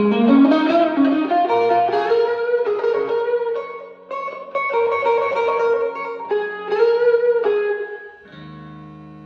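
Electric guitar played through a Fender Blues Junior tube amp: a run of single notes and double-stops, then a lower chord left ringing and fading near the end.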